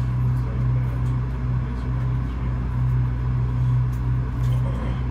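Otis Hovair air-cushion people mover car travelling along its guideway, heard from on board: a steady low hum with a light rushing noise over it.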